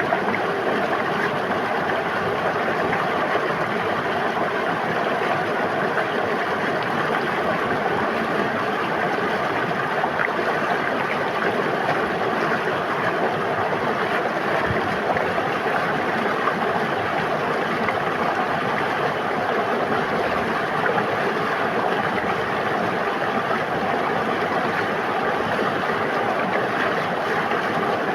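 River water flowing steadily, an even, unbroken rush of water that does not change.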